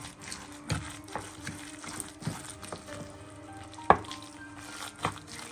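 Spoon stirring a thick, wet corn fritter batter of corn kernels, egg and flour in a bowl, knocking against the bowl at irregular moments, the sharpest knock about four seconds in. Soft background music underneath.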